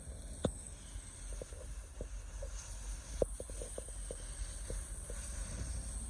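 Low, steady wind rumble on the microphone in a snowstorm, with scattered short clicks, the clearest about half a second in.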